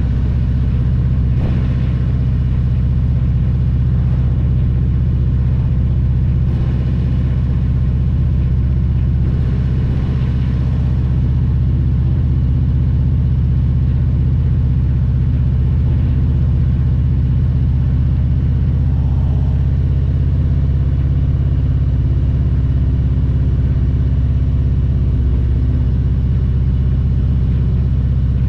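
Harley-Davidson Milwaukee-Eight 114 V-twin on a 2022 Road Glide Special running steadily with a deep, low rumble. It exhausts through a Vance & Hines Power Duals header and Cobra Neighbor Hater slip-on mufflers.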